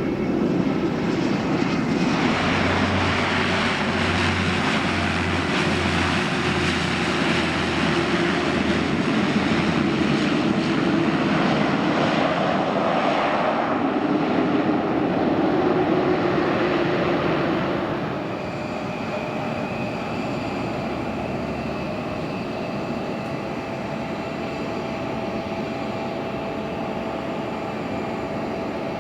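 Airplane engines running loud as the aircraft goes by, the pitch of the engine noise sliding slowly. About eighteen seconds in the level drops to a quieter, steady engine whine.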